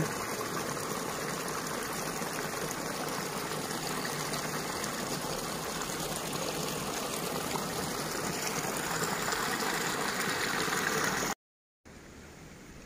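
Steady rush of running water from a stream or irrigation channel. It stops abruptly about eleven seconds in, and a fainter hiss follows.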